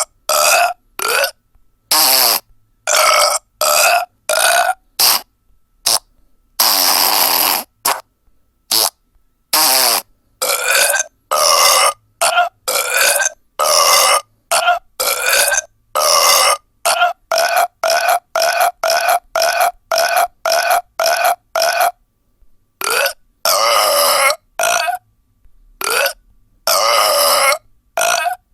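Burp sound effects from a prank sound-board app, one after another: several dozen short burps with silent gaps between them, and one longer drawn-out burp about seven seconds in. They sound thin, with no bass.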